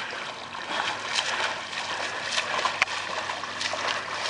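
Swimmer splashing through lake water: a steady wash of water with irregular splashes from the strokes.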